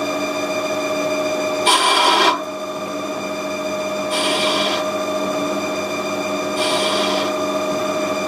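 Haas TL1 CNC lathe running with a steady whine, broken by a short rasping burst about every two and a half seconds.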